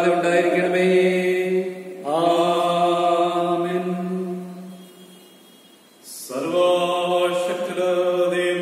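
Slow liturgical chant or hymn singing in long held notes: one phrase fades away about four seconds in, and a new phrase begins a little after six seconds.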